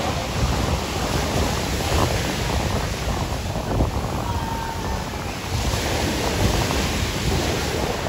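Ocean surf washing on the beach, a steady rush, with wind buffeting the microphone in gusty low rumbles.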